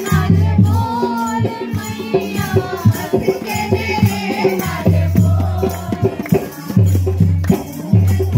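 Devotional music: voices singing a chant-like melody over a repeating low drum beat, with struck and shaken hand percussion.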